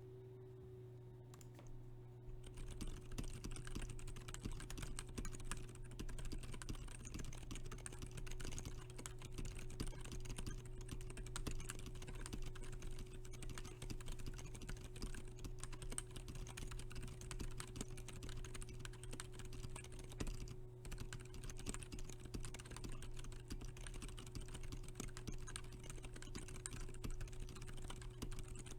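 Fast, continuous typing on a KBD67 Lite mechanical keyboard with Gazzew Boba U4 62g silent tactile switches and Tai-hao ABS keycaps. The dense run of keystrokes starts about two and a half seconds in, over a steady low hum.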